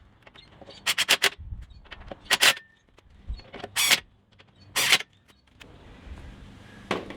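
Short bursts of metal clinking and rattling from bolts and tools being handled while fitting a winch mounting plate: three quick clinks about a second in, a pair near the middle, then two longer rattles.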